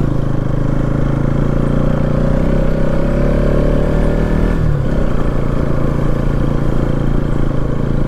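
Motorcycle engine running at low road speed. Its pitch drops about halfway through as the throttle eases off, then it runs steadily again.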